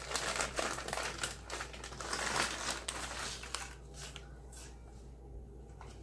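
Chip bag crinkling as it is handled, a run of crackles through the first three seconds or so, then quieter with a few small clicks near the end.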